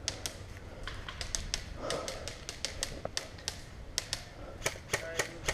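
Airsoft guns firing in irregular single shots and short strings: sharp snapping clicks, coming thicker in the second half.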